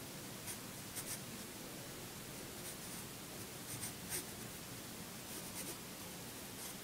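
Wooden pencil scratching lightly on paper in short, irregular sketching strokes, over a faint steady hiss.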